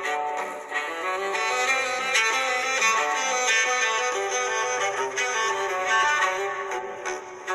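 A stock LG Magna ringtone playing: a fast string melody with a violin-like lead. It stops shortly before the end.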